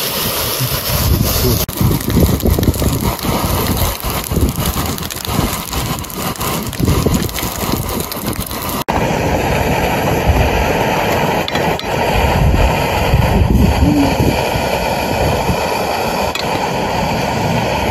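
Bacon sizzling and crackling in hot fat in a frying pan. The sound changes abruptly about halfway through.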